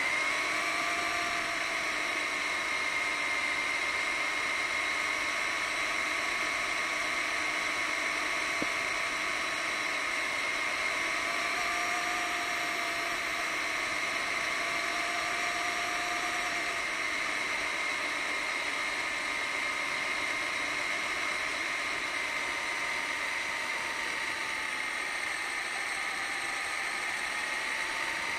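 Radio-controlled monster truck driving, its motor and gears giving a steady whine that shifts a little in pitch with speed, over a hiss of road noise, picked up by the camera mounted on the truck.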